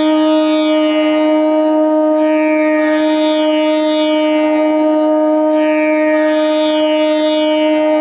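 G-sharp bamboo bansuri holding one long, steady Pa note over a G-sharp tanpura drone whose plucked cycle repeats every second or two. The flute is sounding its Pa against the drone to check that the note is in tune with it.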